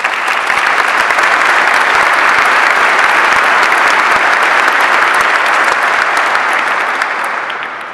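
Large audience applauding, the clapping starting at once and fading gradually near the end.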